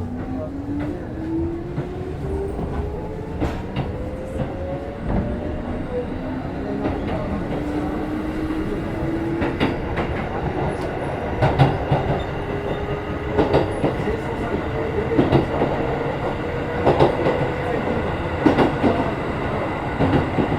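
Keikyu 1500 series field-chopper train heard from inside a motor car as it accelerates. The traction motor and gear whine rises steadily in pitch and levels off near the end. In the second half, the wheels click over rail joints, every second or two.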